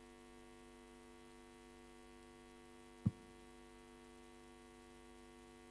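Steady electrical mains hum, with a single short, dull thump about three seconds in.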